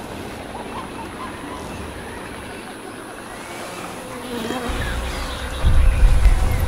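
Jungle ambience of buzzing insects and faint scattered bird chirps. A deep low rumble swells in about five seconds in and becomes the loudest sound near the end.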